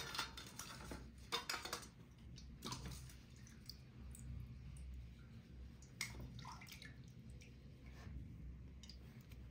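Faint dripping and small splashes of water, in a few short bursts near the start, about three seconds in and again about six seconds in.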